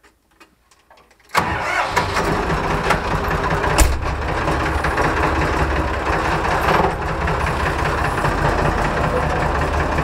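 Tractor engine starting with a sudden onset about a second and a half in after a few faint clicks, then running steadily, heard from the driver's seat in the cab. A single sharp knock stands out about four seconds in.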